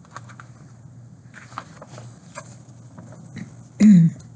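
Paper rustling and soft handling clicks as the pages of a paperback picture book are turned. Near the end a woman makes one brief vocal sound that falls in pitch, and it is the loudest sound.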